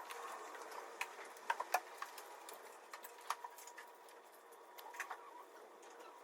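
Faint, irregular light ticks and taps, a few louder clicks about a second and a half in and again around three and five seconds, over a faint steady hum.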